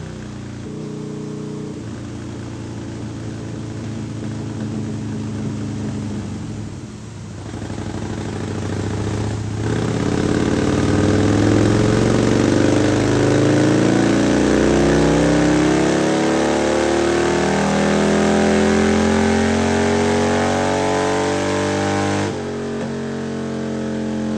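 Harley-Davidson Road Glide's 103 V-twin engine running under load. About ten seconds in it revs up, its pitch climbing steadily for some twelve seconds before it drops off abruptly near the end.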